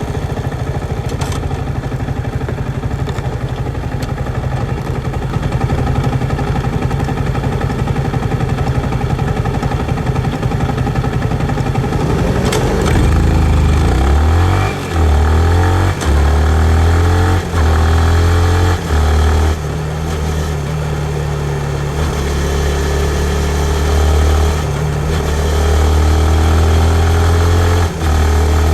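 2019 Yamaha MT-15's 155 cc single-cylinder engine running while being ridden on the street. Its pitch swoops about twelve seconds in, after which the engine note is louder and steadier, broken by several brief drops in level.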